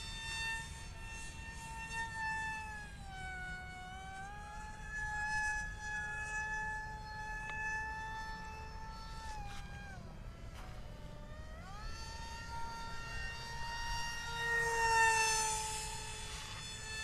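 Electric RC jet's brushless motor and small cut-down propeller whining in flight. The high whine dips in pitch as the throttle is eased about four seconds in, dips deeper around ten seconds in, then climbs back. It is loudest near the end as the plane passes close, its pitch sliding slightly down.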